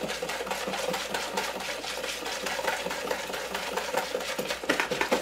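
Wire whisk beating thin cornbread batter in a plastic mixing bowl: a fast, steady run of scraping, clicking strokes.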